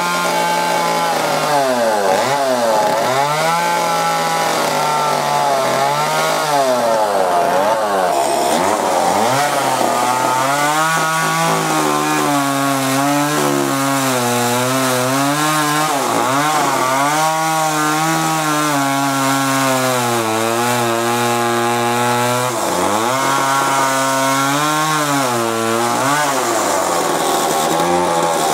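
Gas chainsaw running and cutting into wood while carving. Its engine pitch keeps dipping and climbing back every second or two.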